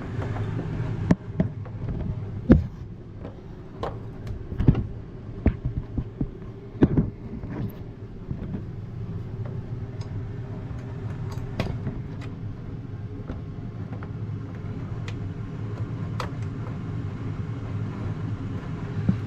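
Clicks, knocks and clunks from a refrigerator door and its hinge hardware being handled and fitted over the hinge post, thick in the first several seconds and then sparser, over a steady low hum.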